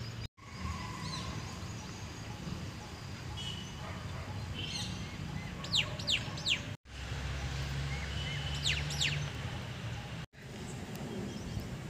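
Wild birds chirping, with short calls and a few quick sweeping whistles, over a steady low background rumble. The sound drops out briefly three times.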